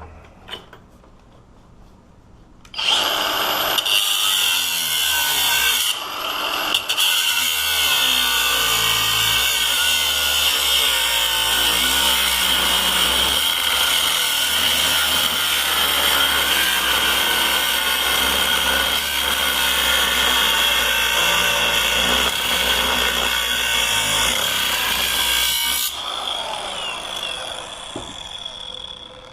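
Power tool cutting into a laminated padlock held in a vise: it starts about three seconds in and runs loud and steady with a high whine, breaks off briefly once near the start, then stops near the end and winds down.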